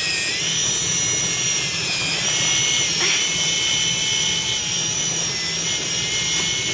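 Electric fishing reel winding in line under the pull of a large hooked fish, its motor giving a steady high whine that dips in pitch twice, at the start and about two seconds in.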